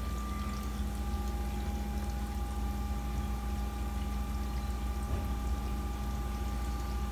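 DM10 screw press dewatering machine running with a steady hum while it presses potato peel residue. The squeezed-out water pours continuously from its drain hose into a tub of water.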